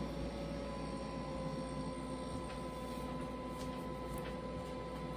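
Steady appliance hum with a thin whine that dips slightly in pitch near the start and then holds steady, and a few faint ticks.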